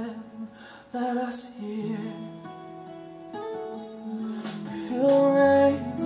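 A recorded song with guitar and held melodic notes, played back over home hi-fi loudspeakers and heard in the room.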